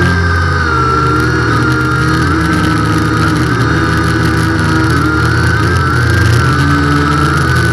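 Quadcopter drone's motors and propellers whining steadily in flight, the pitch wavering slightly up and down over a low hum.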